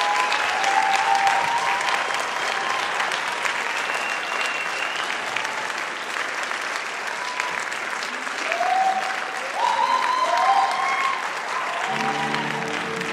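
Theatre audience applauding, with a few shouts and whoops in the second half. Near the end, music starts up under the clapping.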